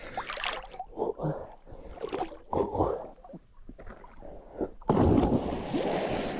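A person swimming in lake water: irregular sloshing and splashing. A louder splash comes about five seconds in.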